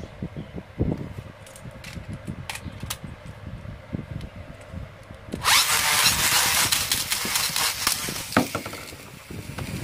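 Beyblade launcher pulled hard about five seconds in, its gears whirring loudly to spin the top up on the launcher, then dying away over a few seconds. Before that, light clicks and knocks of the plastic top being handled.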